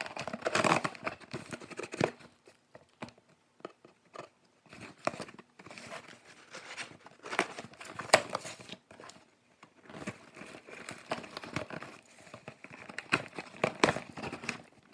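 Cardboard box and packaging being opened by hand: irregular crinkling, tearing and rustling with scattered sharp clicks and knocks.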